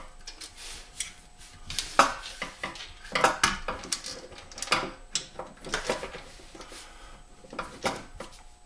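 Irregular metallic clinks and taps as an electric starter motor and its mounting bolt are handled and fitted by hand onto a Predator 212cc engine, sharpest about two and three seconds in.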